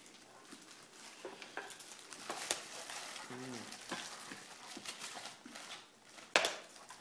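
Rustling and crinkling as wrapped items and packaging are handled and pulled out of a Christmas stocking, with scattered small clicks and one sharper knock near the end.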